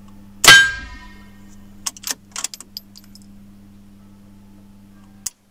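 A single .22 LR shot from a Pallas BA-15 rifle about half a second in, with a ringing tail, followed by a few light clicks. Near the end comes one sharp dry click: the rifle failing to fire although the magazine is not empty.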